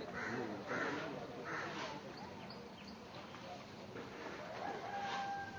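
Crows cawing, three harsh calls evenly spaced over the first two seconds, over a background murmur of voices. A brief steady whistle-like tone follows about five seconds in.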